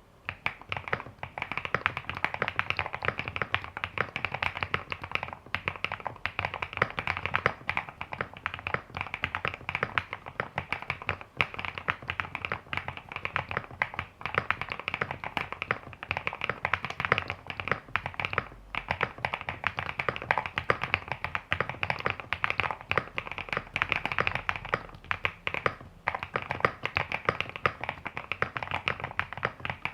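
Fast, continuous typing on an Epomaker RT98 mechanical keyboard with stock Epomaker Creamy Jade 50gf linear switches and PBT keycaps: a dense run of keystroke clacks, with a few brief pauses.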